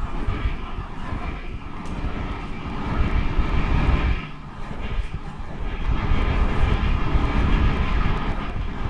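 Live electronic improvisation from a monome-controlled Max/MSP patch: a dense, grainy low rumble under a layered drone of steady tones. It thins out briefly about four seconds in.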